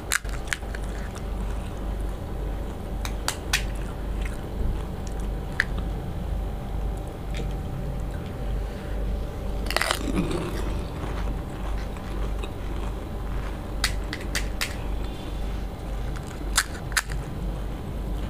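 Crisp fuchka (pani puri) shells cracking as they are broken open with the fingers and bitten whole, with wet chewing. Sharp crackles come now and then, with a bigger crunch about ten seconds in.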